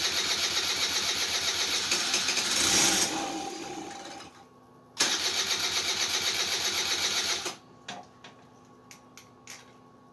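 The electric starter on a Kymco 150cc scooter cranks the engine in two bursts, the first ending about four seconds in and the second running from about five to seven and a half seconds. Each burst is a steady rhythmic chug, and the engine does not catch. A few light clicks follow.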